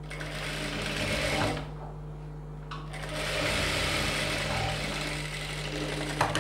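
Industrial sewing machine stitching a blouse neck facing in two runs, with a short pause between them while the fabric is repositioned.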